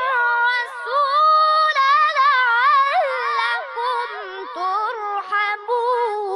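A boy's high voice reciting the Quran in melodic tajweed style, drawing each word out into long held notes with quick wavering ornaments. The pitch settles lower in the second half.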